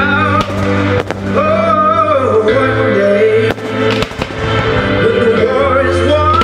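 Music playing with a melody line, while aerial firework shells burst over it several times in a fireworks display.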